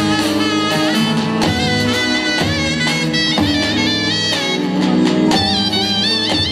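Instrumental zeybek folk tune: a reed wind instrument plays a wavering, ornamented melody over lower held notes.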